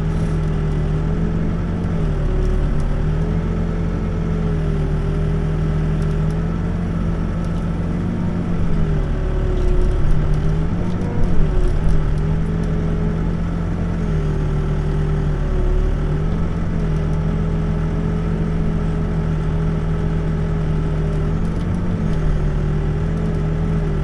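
Backhoe's diesel engine running steadily while digging, heard from inside the cab; its pitch sags briefly about five times, as though loaded by the hydraulics, and it is a little louder around the middle.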